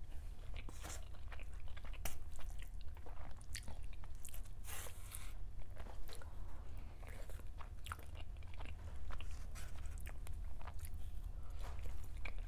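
Close-miked chewing and crunchy bites of egg and hash browns, many small wet mouth clicks and crackles spread evenly through, over a steady low rumble.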